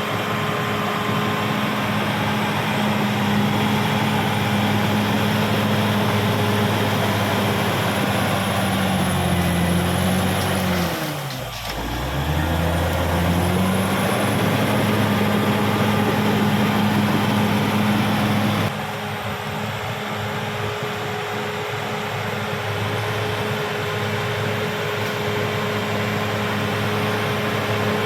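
Caterpillar D6R XL bulldozer's diesel engine running steadily. About eleven seconds in, its pitch sags for about a second and climbs back. Later the sound changes suddenly and becomes a little quieter.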